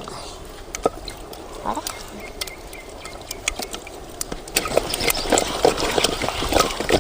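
Cooked tomatoes being mashed by hand in water: wet squelching and splashing clicks that grow louder and busier about four and a half seconds in.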